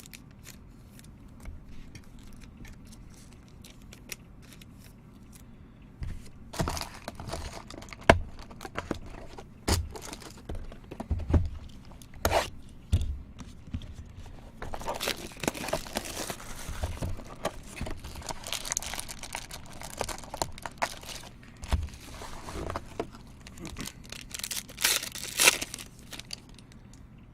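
Wrapping on a trading-card box or pack being torn open and crinkled, with scattered knocks from the box and cards being handled. The tearing and crinkling is densest in the second half.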